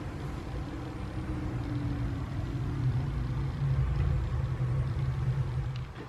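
A steady low mechanical rumble that gets a little louder, then cuts off suddenly near the end.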